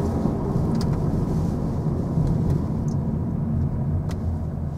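Car engine and road noise heard from inside the cabin while driving: a steady low rumble with a few faint clicks, growing a little quieter near the end.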